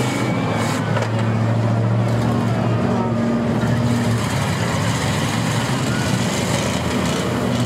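Engines of several demolition derby cars running together in a steady loud drone.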